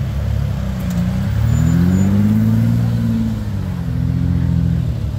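Rock buggy's engine revving at close range. Its pitch climbs for about a second, holds, then drops back to a steady lower run near the end.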